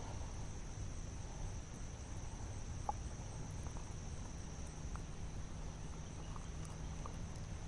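Steady high-pitched chorus of insects over a low rumble, with a few faint ticks.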